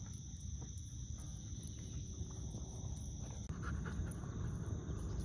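Faint outdoor background: a steady high-pitched drone of insects over a low rumble.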